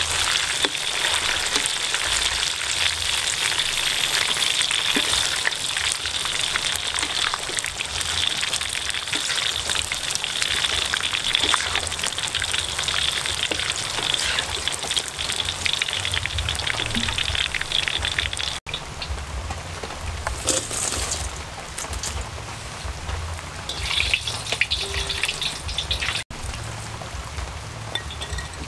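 Giant water bugs (Lethocerus) deep-frying in a wok of hot oil: a dense, steady crackling sizzle. About two-thirds of the way through it cuts off abruptly to quieter, patchier sizzling.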